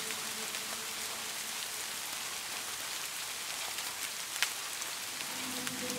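Steady rain falling, an even hiss with scattered drop ticks and one sharper drip about four and a half seconds in. A faint low sustained tone comes back in near the end.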